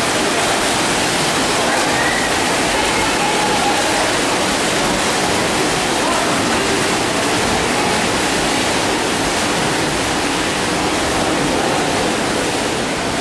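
Many swimmers kicking and splashing across a pool, a steady loud wash of churning water, with faint shouting voices under it.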